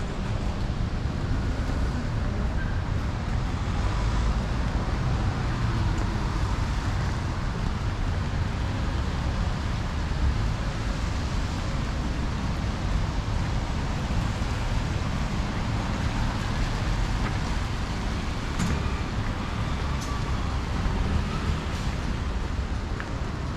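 Steady city road traffic: vehicles passing on a rain-wet street, with tyre hiss and engine rumble. A couple of short clicks sound about three-quarters of the way through.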